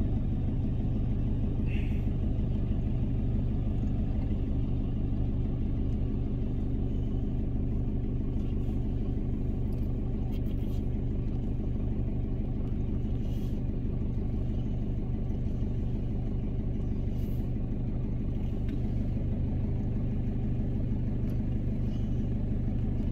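Heavy diesel truck engine idling steadily with a low, even rumble, and a few faint clicks over it.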